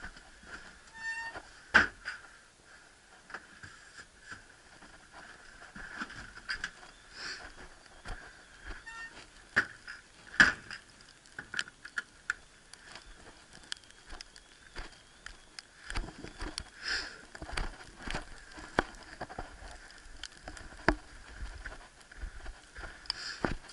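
Handling noise from a body-worn action camera as its wearer moves about: irregular clicks, knocks and rustles, with a louder knock about two seconds in and another about ten seconds in. In the second half there is a low rumble of wind on the microphone.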